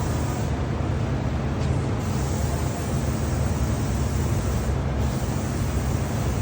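Lacquer sprayer running steadily: a low motor hum under the hiss of the spray gun. The hiss eases briefly about half a second in and again near five seconds.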